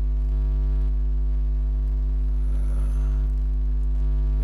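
Steady electrical mains hum, a low buzz with a stack of even overtones, held at a constant level.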